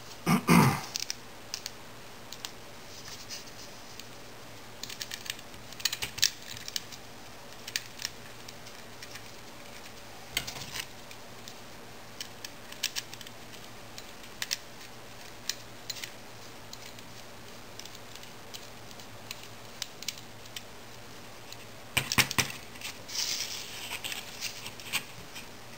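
Scattered clicks, taps and light scrapes of a small screwdriver and metal parts being handled on a screwed aluminium jig, with a louder knock about half a second in and a busier patch of clicking near the end.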